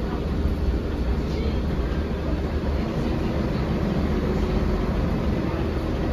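Interior of a 1999 Volvo B10L bus under way, heard from the rear seats near the engine: the rear-mounted six-cylinder diesel gives a steady low drone under road and body noise.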